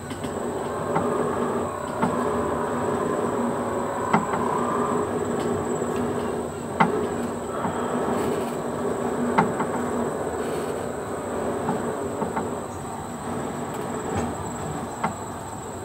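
Small ride train rolling along narrow-gauge rails: a steady running hum, with a sharp clack from the wheels every few seconds.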